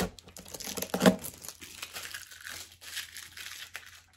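Cardboard box and packaging of a coffee maker being opened by hand: irregular crinkling and tearing, with a louder burst about a second in.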